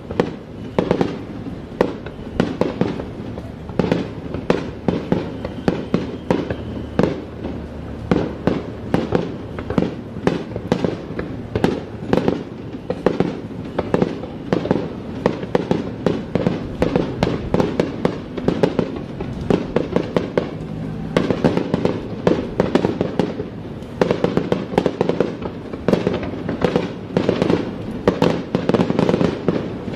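Fireworks display: aerial shells bursting in a continuous rapid barrage, several booms a second with echoing tails, growing denser in the last third.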